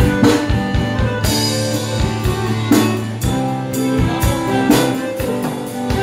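Live band instrumental break between sung verses: a piano accordion plays sustained melody notes over a drum kit beat and strummed acoustic guitar.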